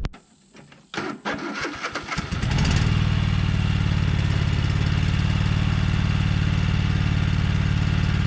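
Riding lawn mower engine being started: about a second of the starter cranking in short strokes, then the engine catches about two and a half seconds in and runs steadily.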